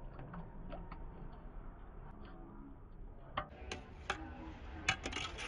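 Metal spoons clicking against steel sauce pots as chutney and sauce are ladled onto a plate of chaat: scattered light clicks, with sharper ones from about three and a half to five seconds in, over a low background hum.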